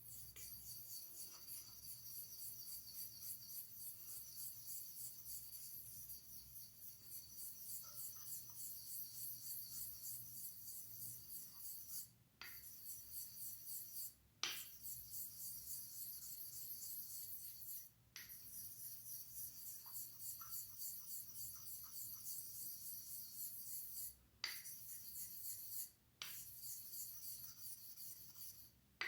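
Razor blade being honed on a Japanese natural finishing stone (Nakayama Karasu awasedo), a hissy scraping of steel on stone in quick, even strokes about three a second. The strokes stop briefly several times, a couple of the stops marked by a sharp click.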